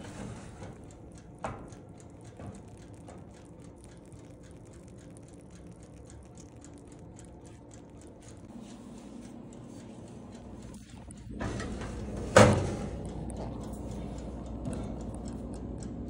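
Toaster oven handling: a few metal clicks of the baking pan on the wire rack, faint rapid clicking, then a single loud clunk about twelve seconds in, typical of the oven door shutting, followed by a steady low hum.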